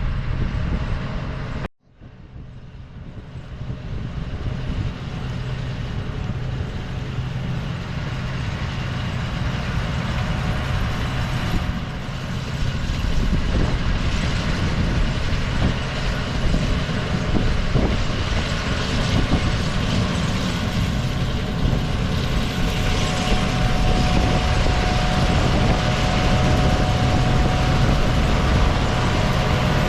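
Combine harvester running steadily, a low hum under broad machine noise. The sound cuts out briefly about two seconds in, then fades back up.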